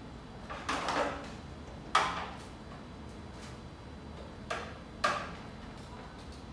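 Plastic clicks and knocks as LED lamp power connectors are plugged together and handled on a plastic hydroponic rack. There is a short cluster about a second in, a sharp click at two seconds, and two more close together near the end.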